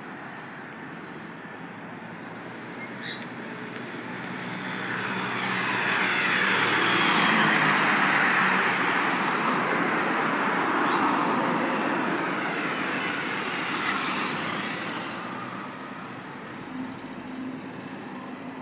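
Twin-turboprop ATR 72 airliner taking off and climbing past, its engine and propeller noise swelling over several seconds, holding loud through the middle, then fading away.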